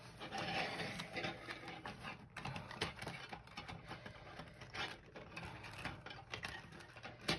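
Paper planner pages being wound onto a metal spiral coil binding: the punched holes slide and catch on the wire, giving a continuous rustle of paper with many small, irregular clicks.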